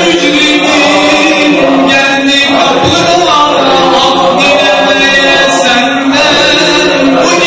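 A group of men's voices chanting a Qadiri Sufi dhikr together, unaccompanied, with long held melodic notes that move from pitch to pitch without a break.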